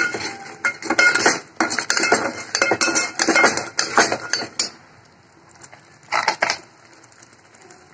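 Flat metal spatula scraping and clanking against the sides and bottom of a metal pot while masala paste is stirred and roasted. The strokes come in a quick, dense run for about four and a half seconds, then one more brief scrape about six seconds in.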